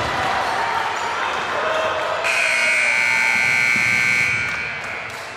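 Gymnasium scoreboard buzzer sounding the end of the first quarter of a basketball game: one steady high-pitched blast of about two seconds, starting about two seconds in and fading out. Before it, gym noise with voices and a ball bouncing on the hardwood.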